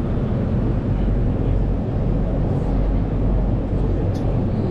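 Steady low rumble of the Penang Hill funicular railcar running, heard from on board.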